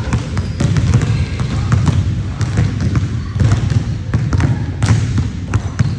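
Many basketballs being dribbled at once on a gym floor: a constant jumble of overlapping, irregular bounces.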